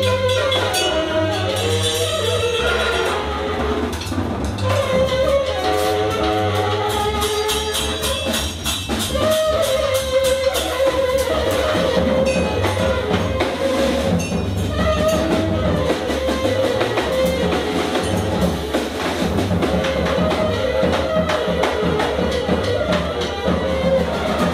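Free-improvised jazz from a tenor saxophone, double bass and drum kit playing live. The saxophone plays short phrases, then from about nine seconds in holds one long note over the bass and busy drumming.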